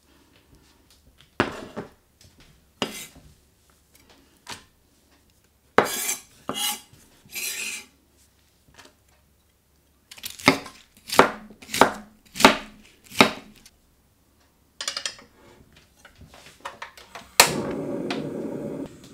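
Food-prep sounds on a wooden chopping board: scattered scrapes and knife strokes, including a run of about six quick chopping strokes, with a steel saucepan being handled. Near the end a sharp click and then a steady hiss as a portable gas stove is lit.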